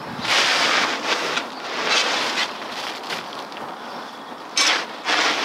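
Metal shovel scooping and scraping through compost and soil: four noisy scrapes, the first and longest about half a second in.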